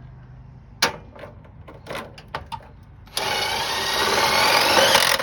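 A few clicks, then a power drill running for about two seconds with a rising whine as it speeds up, driving in screws.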